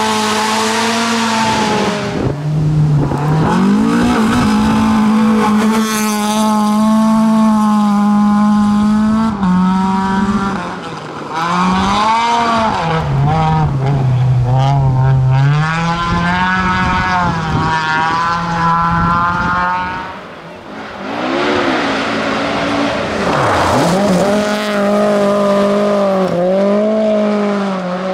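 Tuned rear-wheel-drive Volvo rally cars driven flat out, engines revving high and stepping down at each gear change, with a car sweeping past once late on, its pitch swinging down as it goes by.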